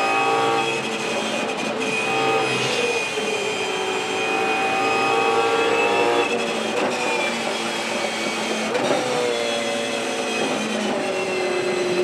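Ford Mustang Supercar's 5.0-litre V8 under hard acceleration, heard from inside the car. The engine note climbs slowly and breaks a few times at gear changes, with a high steady whine running over it.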